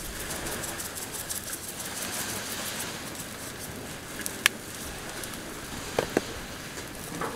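Fish sizzling and crackling on a grill mat over a portable two-burner propane grill, a steady hiss. There is one sharp tap just past halfway and two quick clicks about a second and a half later.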